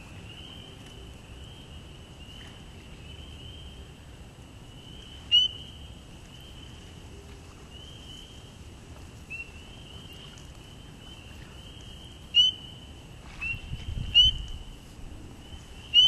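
A chorus of frogs calling from the breeding pool: a steady mass of short, high peeps, with four louder, closer single calls, about five seconds in, twice between twelve and fourteen seconds, and at the end.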